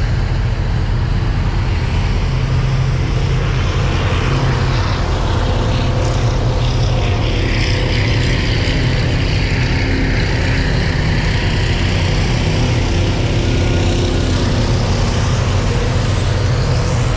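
Steady low engine drone, most likely the idling engine of the vehicle the camera sits on. Race engines on the dirt track swell and fade over it through the middle.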